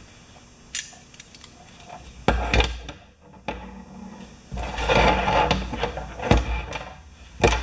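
Hand tools and small metal parts handled on a workbench: a few sharp clicks and knocks, with a stretch of rubbing and rattling in the middle, as locking pliers are set to clamp a cable end.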